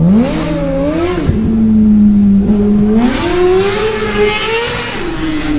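Suzuki GSX-R1000 L7's inline-four engine through a full Akrapovic exhaust, accelerating. Its pitch climbs, holds steady for a second or two, climbs again, then falls away near the end.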